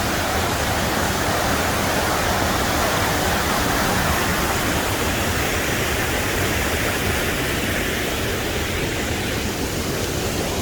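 Waterfall cascade rushing steadily, running full and strong after heavy rain.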